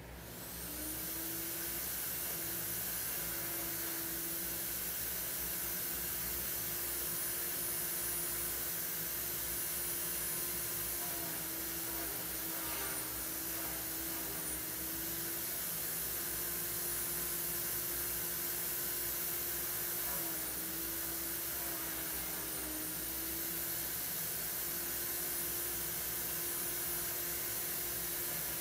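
An electric motor switching on and running steadily, with a hum and a high whine that dip briefly in pitch a few times.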